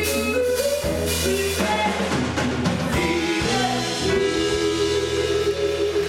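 Live band playing, banjo, acoustic and electric guitars and drums, with singing over it; in the second half it settles into long held notes.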